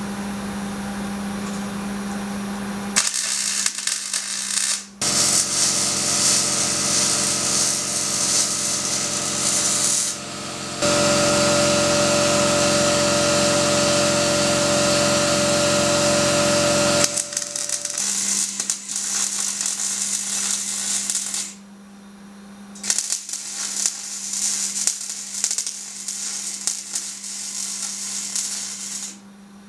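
MIG welder tack-welding steel angle-iron legs: about four runs of arc buzz and crackle a few seconds each, separated by short pauses. The longest and loudest run, in the middle, carries a steady whine.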